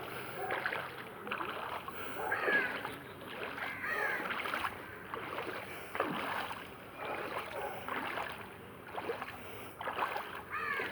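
Footsteps wading through floodwater, the water splashing and sloshing with each step, about once a second.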